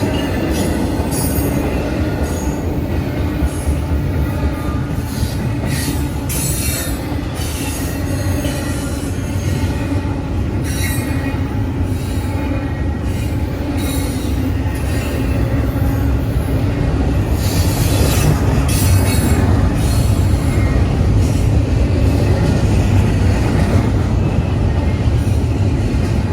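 Freight train passing close by: a steady heavy rumble of rolling cars, with high-pitched wheel squeal coming and going several times.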